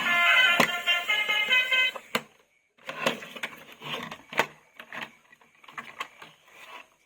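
A toy vehicle's electronic sound chip plays a beeping horn tune that cuts off about two seconds in. After a short pause come irregular clicks and rattles of hard plastic toy parts being handled.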